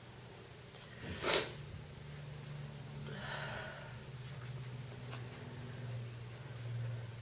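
A woman with a heavy cold breathing between coughing fits: a short, sharp sniff about a second in, then a breathy exhale about three seconds in, over a low steady hum.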